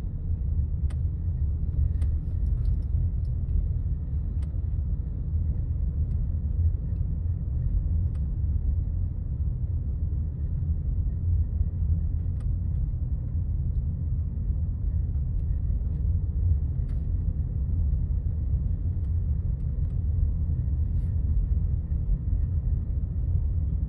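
Steady low rumble of a car driving, road and engine noise heard from inside the cabin, with a few faint clicks.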